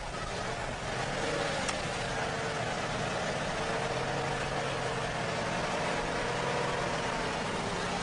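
Cargo truck's engine running steadily as the truck moves slowly.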